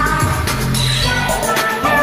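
K-pop girl-group dance song playing with a steady beat and sustained bass notes, in an 8D mix that pans the sound around the listener.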